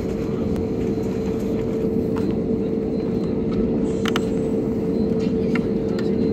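Cabin noise of an Airbus A320neo with CFM LEAP-1A engines taxiing onto the runway: a steady engine hum with a constant mid-pitched whine that slowly grows a little louder. A few light clicks, the clearest about four seconds in.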